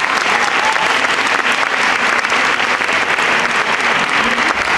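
Theatre audience applauding, many hands clapping at a steady level.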